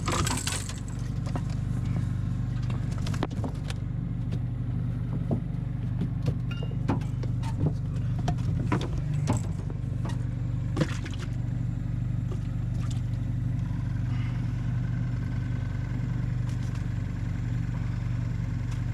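An engine running steadily with a low hum, with scattered clicks and knocks over it.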